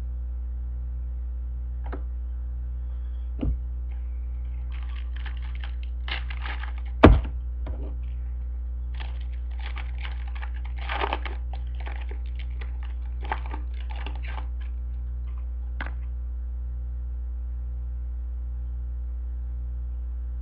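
Trading-card packs and cards being handled: crackly rustling and small clicks, with one sharp knock about seven seconds in. A steady low electrical hum runs underneath.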